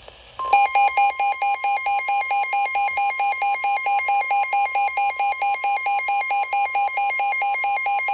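NOAA Weather Radio warning alarm tone, a steady 1050 Hz tone announcing a severe thunderstorm warning, starting about half a second in. A rapid electronic beeping, about five pulses a second, sounds loudly over it.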